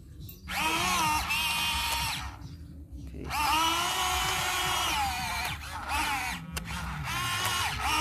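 RC model excavator's small electric motors whining as they drive the boom and arm, in three bursts with the pitch bending as each starts and stops.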